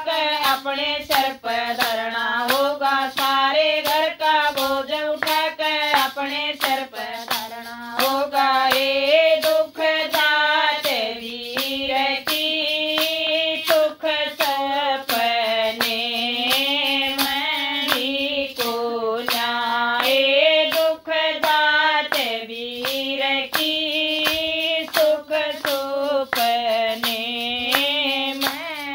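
A woman singing a Haryanvi folk song, with steady hand claps keeping the beat about twice a second.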